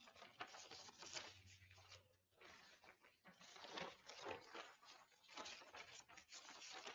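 Faint rustling and crackling of paper sheets being handled and turned, an irregular run of small crinkles with a short lull a little past two seconds in.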